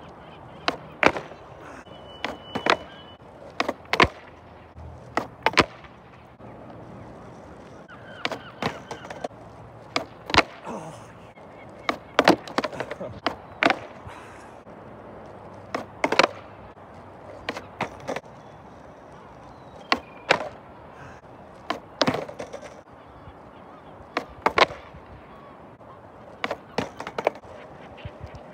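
Skateboard popping, flipping and landing on rough asphalt, over and over as kickflips are tried: sharp knocks and clatters of the deck and wheels every second or two.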